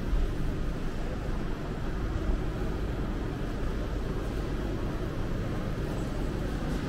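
Steady low rumble and hiss of a large supermarket hall's background noise, with no single event standing out.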